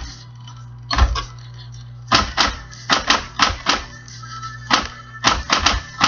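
Electric typewriter being typed on: quick runs of sharp key strikes in uneven bursts of one to five, with pauses between, over the machine's steady low motor hum.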